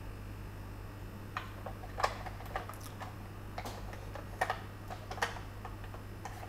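Scattered small hard-plastic clicks and taps as an action figure is pushed into the cockpit of an Action Force Hyena toy tank and the plastic canopy is lowered over it; the figure does not fit. They begin a little over a second in and come irregularly, over a steady low hum.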